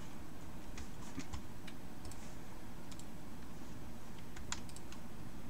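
Scattered light clicks of a computer mouse and keyboard, a few at a time and loosely spaced, over a steady low background hum.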